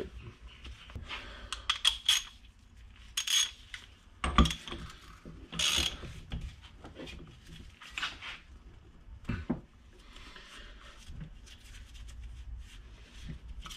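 Metal tools and parts clinking and knocking on a wooden workbench while the spool valve fitting is tightened back onto a power steering pump with a wrench. Several sharp clinks in the first half, fainter handling noises later.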